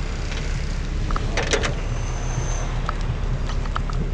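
Fire engine's engine idling with a steady low hum. A quick cluster of sharp metallic clanks about a second and a half in, with a few lighter clicks later, comes from a firefighter climbing down the ladder's rungs.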